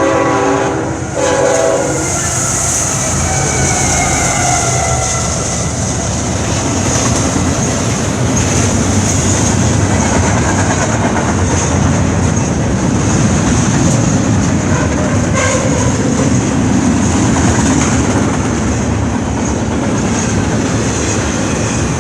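Nathan K5HL five-chime air horn on a BNSF GE Tier 4 locomotive blowing a chord, which breaks briefly about a second in and stops about two seconds in. It gives way to the steady rumble and clickety-clack of the train's wheels as it passes.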